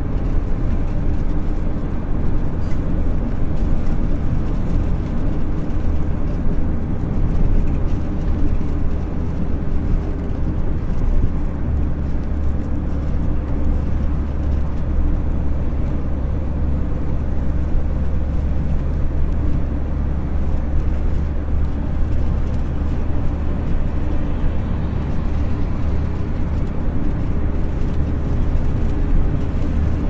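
Road and engine noise inside a moving vehicle's cabin: a steady low rumble that does not rise or fall.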